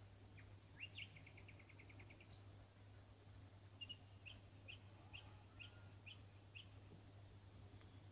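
Near silence with a steady low hum, under faint, high bird-like chirps: a quick trill of about ten notes about a second in, then about seven single chirps roughly two a second.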